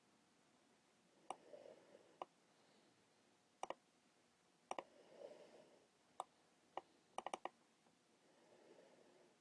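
Faint computer mouse clicks, single and in quick pairs like double-clicks, with a rapid run of four near the end.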